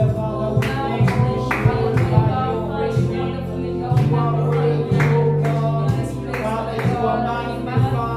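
Worship music with singing over a steady bass and a regular beat.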